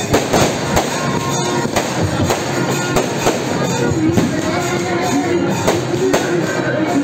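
Aerial fireworks going off in repeated sharp bangs and crackles, several a second, with music playing over them, its melody coming up about halfway through.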